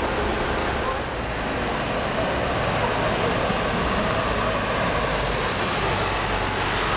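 Steady city street traffic noise, with a deeper rumble from passing vehicles growing in the second half.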